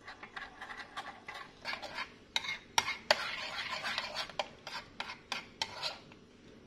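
Metal spoon stirring a flour-and-water batter in a ceramic bowl, clinking and scraping against the bowl in quick, irregular strokes.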